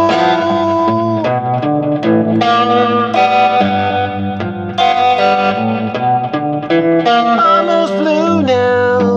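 Electric guitar playing a slow melodic instrumental line, with held notes, string bends and vibrato, over a low sustained accompaniment.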